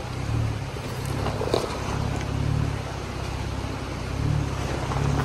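Jeep Wrangler JL's engine running at low revs as it crawls over a rocky trail, the rumble swelling and easing slightly, with a few faint knocks of rock under the tyres.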